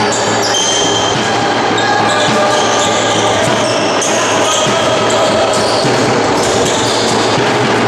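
Indoor handball play on a wooden sports-hall floor: the ball bouncing and many short, high squeaks of players' shoes on the floor, over a steady loud din in the hall.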